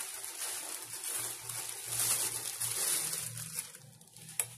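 Thin plastic shipping bag crinkling and rustling as it is pulled off a leather backpack, dying away near the end, with one short click just before the end.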